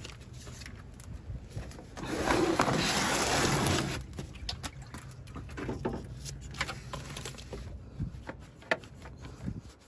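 Handling noise: a loud rustling scrape lasting about two seconds, starting about two seconds in, then scattered light clicks and knocks.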